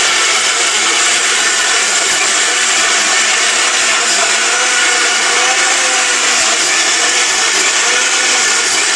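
Ajnur electric mixer grinder running continuously, its stainless steel jar grinding ginger and garlic with a little water into a paste. A steady, loud motor whir with the pitch wavering slightly.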